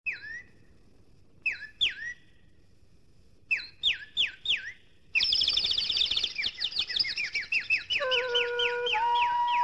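Opening of a film song: short falling bird-like chirps, first one, then a pair, then a run of four, followed about five seconds in by a dense run of chirps. Near the end, long held musical tones come in under them.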